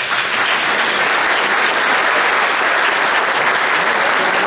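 Audience applauding steadily, a sustained dense clapping.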